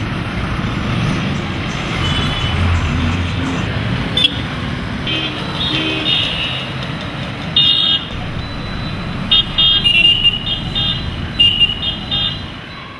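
Busy road traffic with repeated short vehicle-horn toots, coming thickest in the second half.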